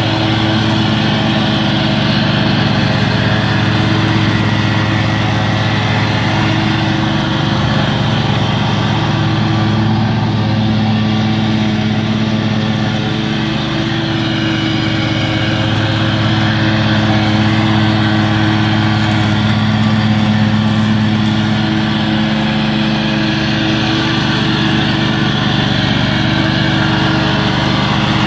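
Exmark Turf Tracer 36-inch walk-behind mower's Kohler Command engine running steadily while mowing grass, its pitch holding even with only small rises and dips in level.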